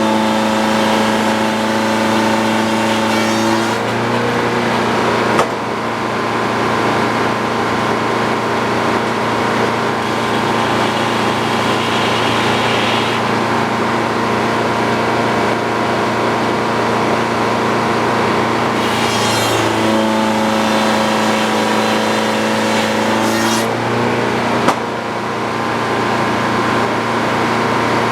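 Sawmill running steadily under power while sawing a beam into boards. Its tone shifts twice, at the start and again past the middle, and a short sharp knock comes about five seconds in and again near the end.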